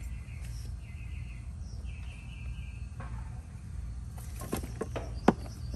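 Outdoor background of a steady low hum with short, trilled bird chirps, then a few sharp clicks near the end, the last one loudest, from handling the meter's test leads and clips.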